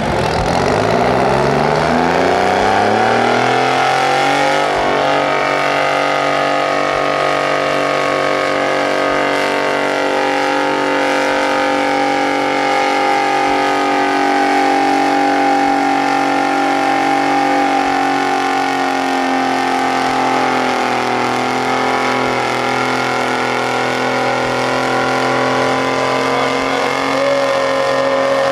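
Massey-Ferguson 98's GM 3-71 two-stroke diesel revving up over the first few seconds, then held at full throttle as it pulls the weight-transfer sled.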